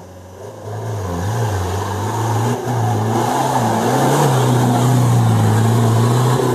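Off-road 4x4's engine revving hard under load as it tries to climb an obstacle. It swells over the first two seconds, then holds loud with only slight wavering in pitch.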